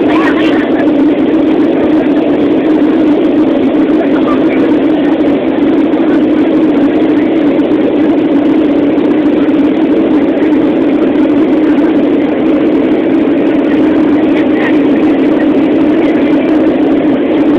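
Jet airliner cabin noise in flight: a loud, steady drone of the engines and airflow, heard from a window seat.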